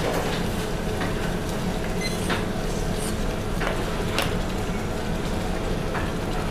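Steady motor hum and rumble of a stand mixer whisking egg whites at low speed, with a few faint crackles from sugar syrup boiling in a stainless saucepan on an induction hob.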